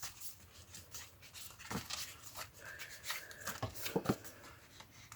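Paper and card being handled: scattered rustles and light taps as a paper tag is pushed into an envelope pocket.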